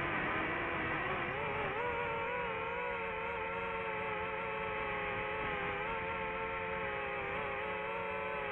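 A small motor running continuously. Its pitch dips near the start, rises about two seconds in, then holds with a slight waver.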